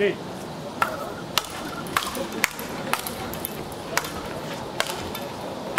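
Speedball rally: solid round paddles striking the ball tethered to a central pole, about eight sharp hits at roughly half-second to one-second intervals, with faint voices underneath.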